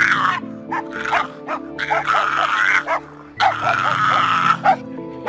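French bulldog vocalising: long wavering howls alternate with bursts of short, high yips, over background music.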